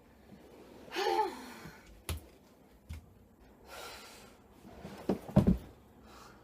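A person's breathy gasp and sigh, with a few sharp clicks and knocks in between.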